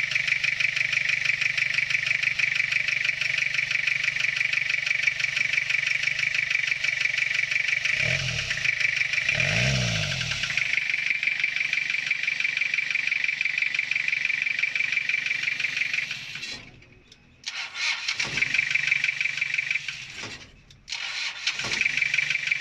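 Toyota 3L 2.8-litre four-cylinder diesel engine running with a steady diesel clatter, after a new timing belt has been fitted and the injection pump's seal problem fixed. Its speed rises and falls briefly twice a little before halfway, and the sound drops away for a moment twice near the end.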